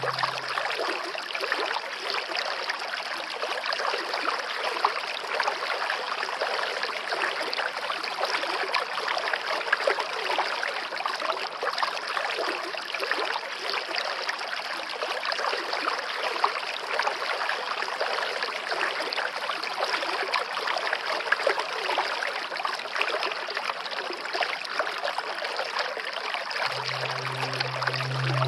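Steady rushing of a waterfall: a dense, even hiss of falling water with no pitch. Background music fades back in near the end.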